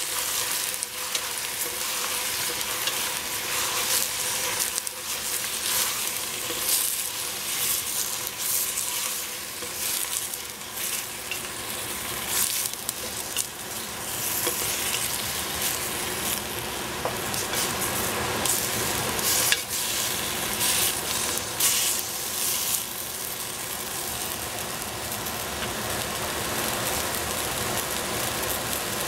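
Bok choy sizzling in a stainless steel pot as it is stir-fried, a wooden spatula scraping and knocking against the pot. The stirring stops a few seconds before the end and the steady sizzle carries on.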